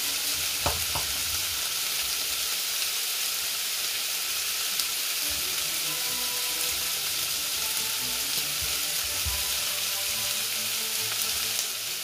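Pork belly cubes sizzling steadily as they fry in a pan, with two sharp knocks a little under a second in.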